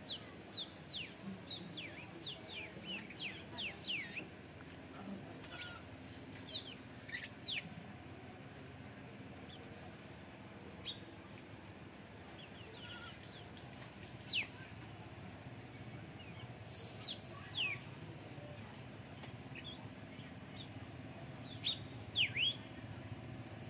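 Birds chirping in short, quick downward-sliding calls: a rapid run of them in the first few seconds, then single calls and pairs every few seconds over a faint steady background hum.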